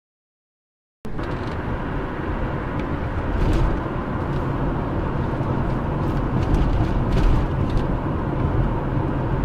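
After about a second of silence, a car's engine and tyre-on-road noise run steadily, heard from inside the cabin through the dash cam.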